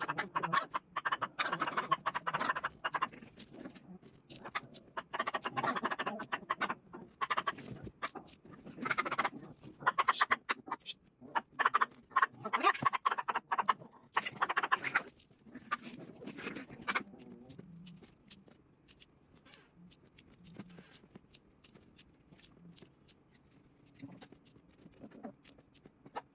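Small plastic alphabet beads clicking and rattling against a clear plastic organizer box as they are picked through and dropped into its compartments. There are dense bouts of rattling through roughly the first fifteen seconds, then only sparse single clicks.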